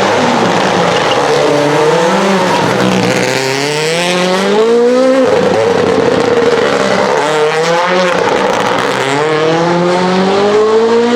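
Rally car engine accelerating hard through the gears, its pitch climbing in several long pulls with a sharp drop about five seconds in.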